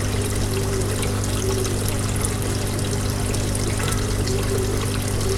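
Steady electric hum of a small aquarium pump with water trickling and bubbling, unchanging throughout.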